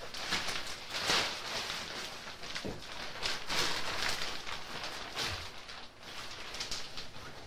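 Irregular rustling and crackling noise close by, swelling and fading in uneven pulses.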